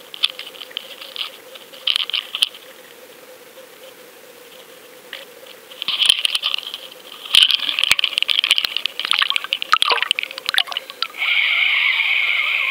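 Underwater camera going over the side of a boat: knocks and scrapes of handling, then water splashing and sloshing around it as it enters the sea, changing about eleven seconds in to a steady underwater hiss once it is submerged.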